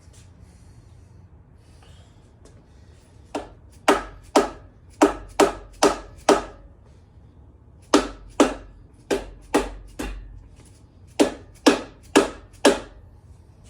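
A series of sharp taps or knocks, about two a second, in three runs of four to seven strikes, from hand work on the engine as the cylinder head goes on.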